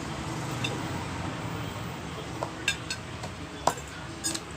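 Cutlery clinking against a plate a few times while eating noodles, the sharpest clink about three and a half seconds in.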